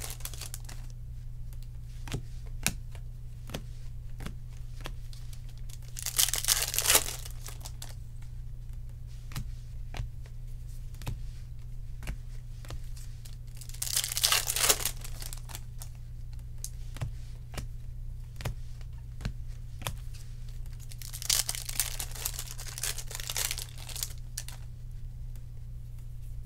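Baseball card pack wrappers being torn open, a rustling tear about six seconds in, another around fourteen seconds and a longer one near the end, with light clicks and snaps of cards being handled and flipped in between. A steady low hum runs underneath.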